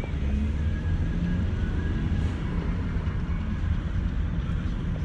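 Steady low road and engine rumble heard inside a moving van's cabin.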